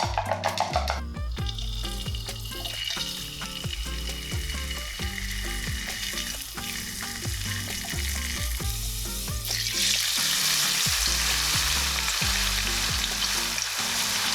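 Food sizzling as it fries in a pan, the sizzle turning much louder about ten seconds in, over background music with a steady bass line.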